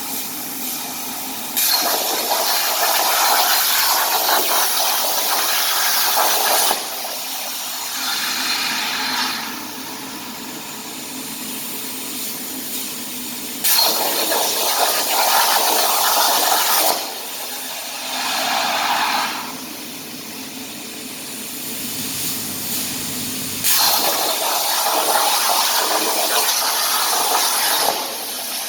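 CNC plasma cutter torch hissing in three long bursts, each cutting in and out abruptly, with a shorter, weaker burst of air after each one. A steady background hiss runs underneath.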